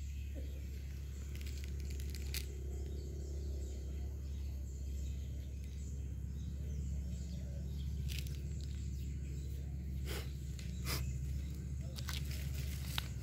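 Steady low outdoor background rumble, with a few faint short clicks now and then.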